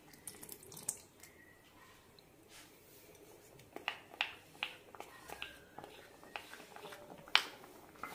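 A spoon scraping and tapping against a clear glass bowl as custard mixture is emptied into a pan of simmering milk: a few faint clicks at first, then a run of sharper taps from about halfway, with one sharp click near the end.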